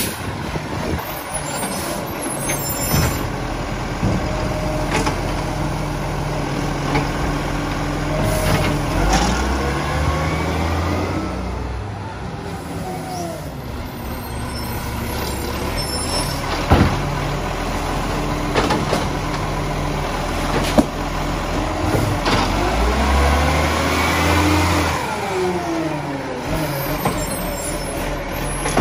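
Side-loader garbage truck running on the street: its diesel engine idles, rises in pitch as the truck moves off and drops again as it slows, with air-brake hiss and a couple of sharp metallic knocks.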